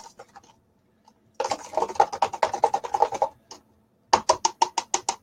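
Spoon stirring a drink in a cup, clicking rapidly against its sides in two bursts: the first about a second and a half in, the second near the end.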